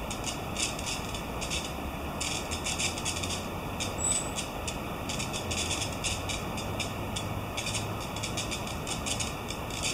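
Steady rush of the wide Uji River's flowing water, under a low steady hum, with bursts of rapid high-pitched ticking coming and going throughout.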